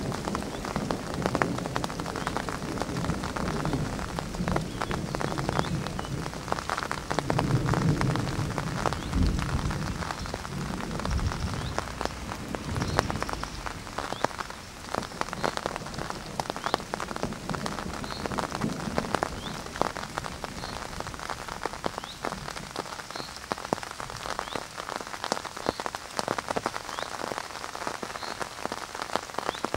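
Rain falling, with many close, sharp drop hits on a hard surface. A low rumble of distant thunder runs through the first half, swelling about a third of the way in and dying away around the middle.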